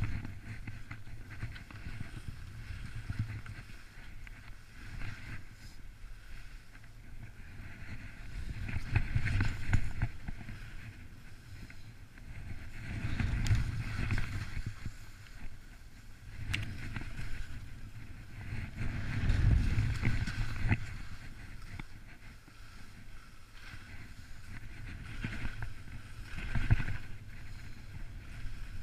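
Wind rushing over a skier-worn camera's microphone during a downhill run on skis, with the hiss of the skis on snow; the rumble and hiss swell and fade in surges every few seconds.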